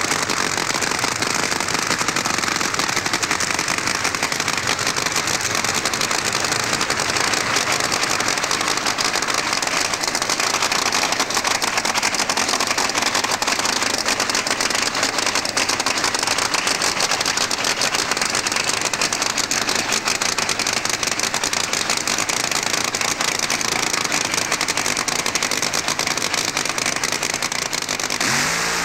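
Supercharged nitro funny car engine idling loudly and steadily, with a dense rapid firing and no revving.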